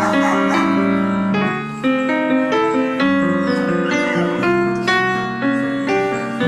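Piano music: a slow piece of held chords under a melody, with notes changing every half second or so.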